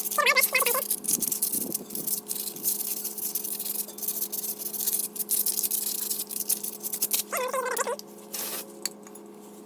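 Hand sanding the rusted wheel hub face where the brake rotor seats: rapid scratchy strokes of abrasive on metal, with a few short high squeaks near the start and again near the end of the scraping. The sanding stops around eight seconds in, leaving a faint steady hum.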